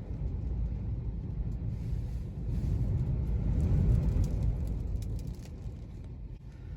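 Low rumbling road and wind noise inside a moving car, swelling to a peak about four seconds in and then easing off.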